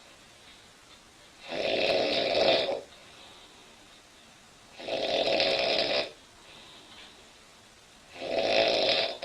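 A woman snoring loudly in her sleep. Two long snores come about three seconds apart, and a third begins near the end.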